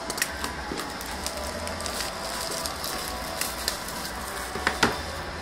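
Crinkling and clicking of plastic shrink-wrap and cardboard as a sealed box of trading cards is picked up and handled, with a sharper crackle near the end, over a steady low hum.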